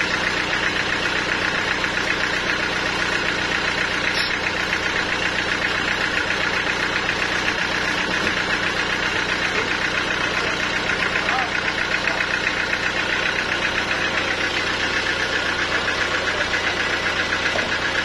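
Band sawmill running steadily without cutting, its drive and blade giving a constant machine hum with a fast, even pulse.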